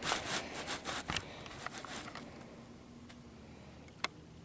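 Small plastic toys and props handled on a surface: a cluster of rustles and light taps over the first two seconds, then a single sharp click about four seconds in.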